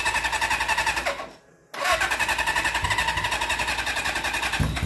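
1980 Suzuki GS550's inline four-cylinder engine being turned over by its electric starter in two bursts, with a rapid, even pulsing. The first burst breaks off about a second in and the second starts half a second later and runs until it cuts off at the end. The engine cranks without catching, which the owner takes as the sign of an electrical fault rather than a fuel problem.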